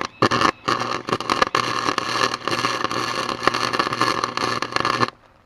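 Electric arc welding on a snow thrower's auger blade: the arc crackles and sizzles, stuttering through a couple of short starts in the first second, then burns steadily as one continuous bead over a low hum, and cuts off suddenly about five seconds in.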